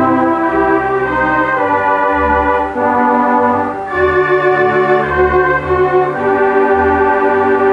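Wurlitzer theatre organ playing held chords that change every second or so over a low pedal bass line.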